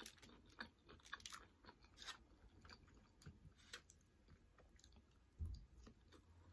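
Quiet chewing of loaded beef nachos, with small irregular crunches and wet mouth clicks as the tortilla chips are bitten and chewed. A dull low thump about five and a half seconds in is the loudest moment.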